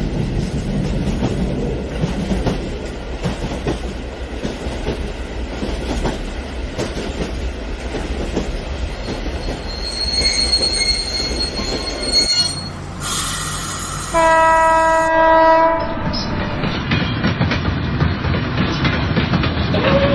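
Model electric trains clattering along their track, wheels clicking over the rail joints, with a string of tank cars rolling past. About 14 seconds in, a locomotive's electronic horn sounds one long honk, held for about two seconds, and a horn tone starts again near the end.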